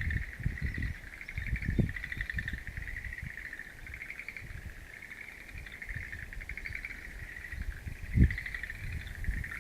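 A chorus of frogs calling, many overlapping rapid pulsed trills that run on without a break. Irregular low thumps and rumble sit underneath.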